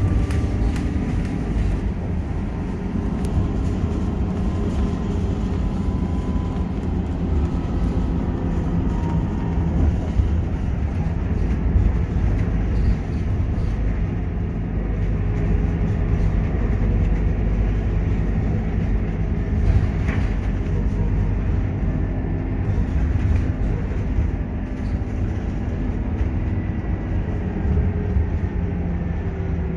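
Cabin noise of a Scania K230UB city bus on the move: its diesel engine running with road noise, the engine note shifting up and down with speed. A few brief knocks and rattles come through.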